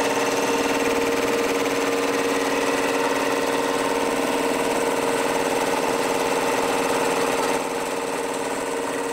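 Three-cylinder air compressor pump and its electric motor running steadily, an even mechanical hum that drops slightly in level near the end.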